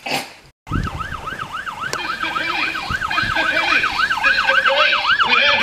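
A siren in fast yelp mode, its pitch sweeping up and down four or five times a second, with a lower wail joining near the end.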